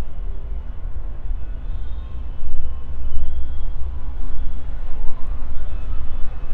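Steady low rumble of outdoor background noise, with faint scattered voices or tones over it.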